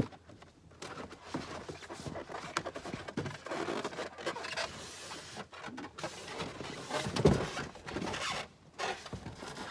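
Cardboard shipping box and packing being scraped and rustled as a trimmer mower is pulled out of it, with scattered clicks and one sharp knock about seven seconds in.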